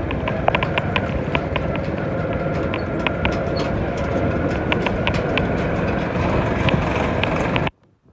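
Motorcycle engine running on the move, with road and wind noise and irregular sharp ticks and rattles. The sound cuts off abruptly near the end.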